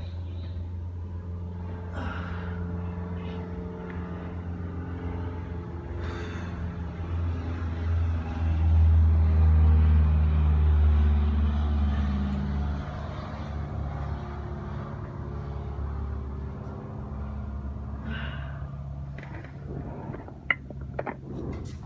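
Low droning rumble of a running motor, with a hum that shifts in pitch; it swells about eight seconds in and eases off a few seconds later. A sharp click near the end.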